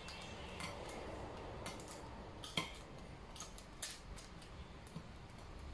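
A toothpick scraping and picking at a thin, brittle disc of dalgona sugar candy on parchment paper: faint scratching with scattered small clicks and ticks.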